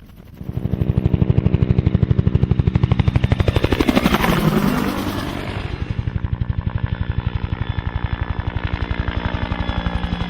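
Helicopter passing close overhead with rapid, even rotor-blade chop. It comes in suddenly about half a second in, swells to a rush around four seconds in with the pitch dropping as it passes, then runs on steadily.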